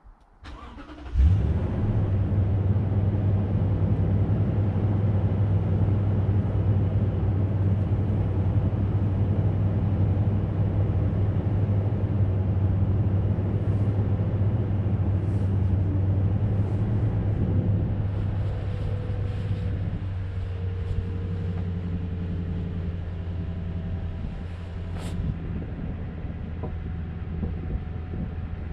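Pickup truck engine starting about a second in, catching at once, then idling steadily; the idle grows a little quieter after about eighteen seconds.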